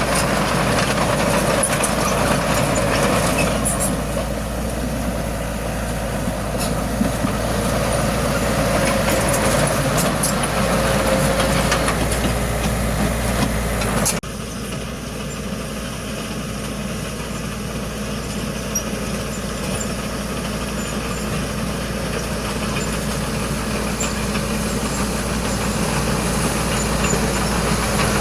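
Diesel engine of heavy earthmoving machinery running steadily. About halfway through, the sound drops abruptly in level and character.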